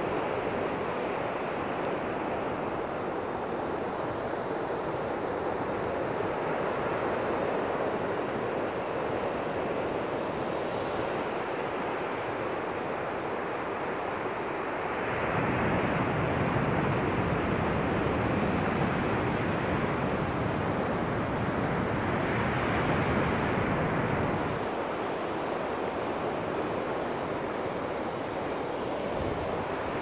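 Sea surf washing steadily onto a sandy beach, with wind on the microphone. The sound grows louder, with more low rumble, for about ten seconds around the middle.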